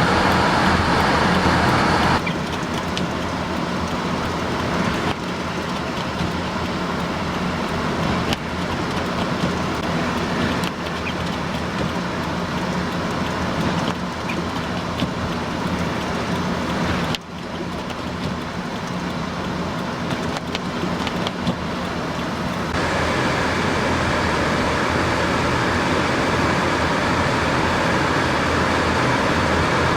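Strong blizzard wind rushing over the microphone, with a vehicle engine running steadily underneath. The mix changes abruptly a few times, about 2, 17 and 23 seconds in.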